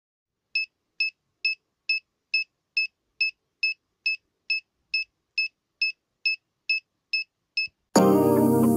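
Electronic buzzer in a simple transistor beeper circuit sounding a steady run of short, high beeps, a little over two a second. Loud music cuts in near the end.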